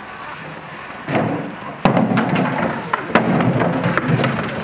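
Hollow plastic jerry can knocked about on concrete by a polar bear playing with it: low, hollow thudding and rumbling starting about a second in, with several sharp knocks.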